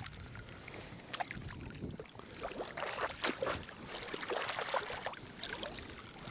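Water splashing and sloshing in short, irregular bursts as a small hooked redfish thrashes at the surface of shallow water while being reeled in.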